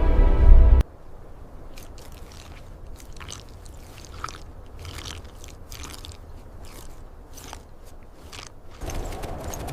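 Music cuts off under a second in, followed by a run of irregular crunching and scraping sounds, several short crunches a second.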